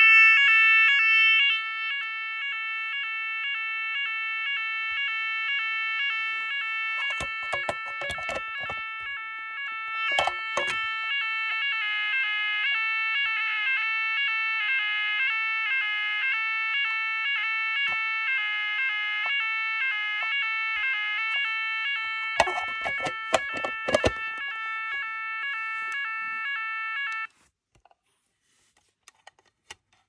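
Clifford & Snell Yodalarm YA30 electronic fire alarm sounder sounding a loud, fast on-off pulsing tone; partway through the tone pattern changes, with handling knocks over it, and it cuts off suddenly near the end.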